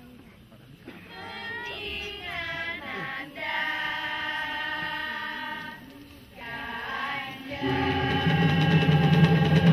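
A group of voices sings an unaccompanied opening, first a gliding phrase, then a long held note, then a short phrase. About eight seconds in, the Indonesian instrumental ensemble comes in loudly with sustained tones.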